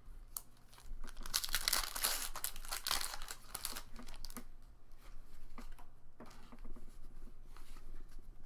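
A foil Pokémon TCG booster pack wrapper being torn open and crinkled, loudest in the first few seconds, then lighter rustling of the wrapper and cards.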